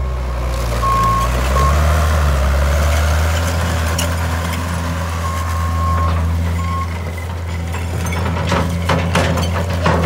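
Mustang MTL16 compact track loader's engine running steadily as it drives on gravel, with its high warning beeper sounding in two pairs, a long beep then a short one, about a second in and again around five seconds in. Knocks and clatter from the tracks and bucket near the end.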